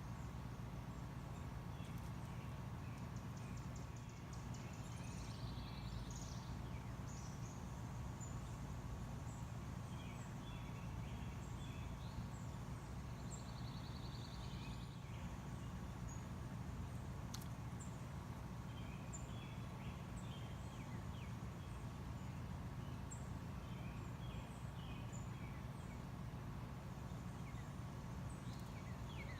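Outdoor garden ambience: a steady low background rumble, with faint small-bird chirps and short trills scattered throughout.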